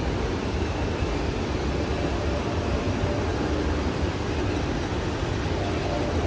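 Steady ambience of a large store: an even rumble of ventilation and background din with a faint indistinct murmur, no single event standing out.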